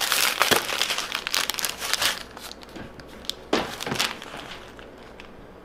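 Thin plastic wrapper crinkling and tearing as a plastic-wrapped spoon for a yogurt parfait is unwrapped. There is a dense stretch of crackle with sharp clicks for about two seconds, a second short burst about three and a half seconds in, and it quietens toward the end.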